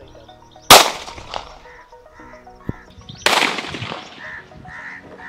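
.32 bore pistol fired twice, two sharp gunshot cracks about two and a half seconds apart, each trailing off in a short echo.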